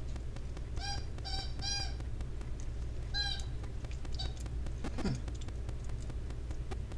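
Small Maltese dog whimpering: three short, high-pitched squeaky whines in quick succession about a second in, then another about two seconds later and a fainter one after that.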